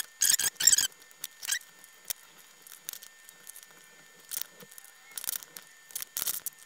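Fast-forwarded workbench handling: short, squeaky chirps and scratches as a soldering iron tip and a small screwdriver work a steel ball bearing into a plastic 3D print. The 15x speed-up turns the handling noise high and chirpy. Three come quickly together about the first second, and more follow scattered through the rest.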